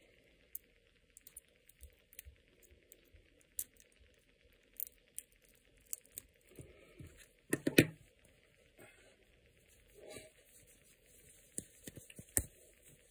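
A wristwatch on a leather strap handled by gloved hands: scattered light clicks and rustles, with a louder cluster of knocks about eight seconds in.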